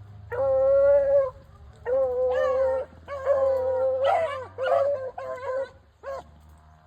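Beagles baying on a rabbit's scent trail: a few long, drawn-out bays, then a run of shorter ones, the voice a hound gives while running a track.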